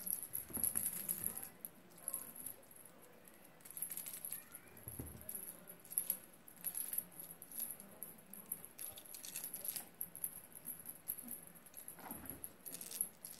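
A cat teaser wand's toy rattling in repeated short bouts as it is flicked about for a kitten to chase.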